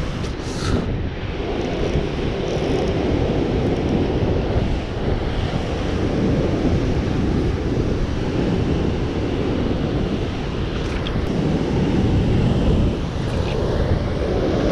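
Ocean surf breaking and washing over shore rocks, mixed with wind buffeting the microphone: a steady, unbroken rush of noise.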